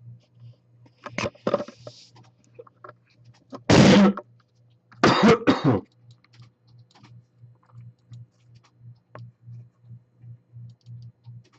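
A person coughing: one loud cough about four seconds in, then a quick run of two or three more about a second later, with a low pulsing hum underneath.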